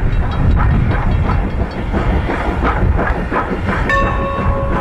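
Norfolk and Western 4-8-0 steam locomotive working past, its exhaust chuffing about three times a second over a heavy rumble. Near the end a steady steam whistle blast begins.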